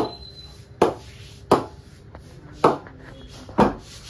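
SS Dreruss willow cricket bat blade being knocked to test its ping: five sharp knocks at uneven gaps of about a second, each with a short ring.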